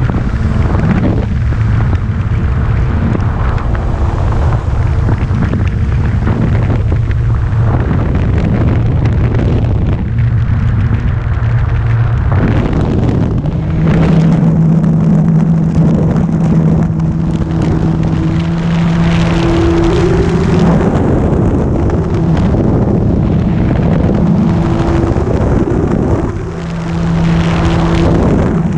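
Wind buffeting the microphone over the steady hum of a Carbon-Z Cessna 150 RC model's electric motor and propeller. The hum steps up to a higher pitch about thirteen seconds in, as with more throttle.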